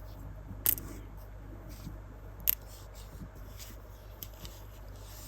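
Small sharp clicks and light taps from glass beads and their packets being handled, with two louder clicks, one near the start and one about two seconds later.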